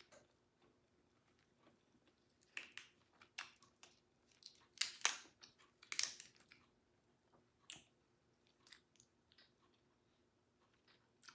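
Close-up chewing of lobster tail meat, with scattered crackles and wet smacks. The loudest come in a cluster about five to six seconds in.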